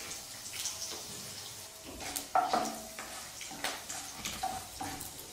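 Chana and urad dal frying in hot fat in a non-stick kadhai as a tempering, with a light sizzle. A flat spatula scrapes and knocks against the pan several times, loudest a little over two seconds in.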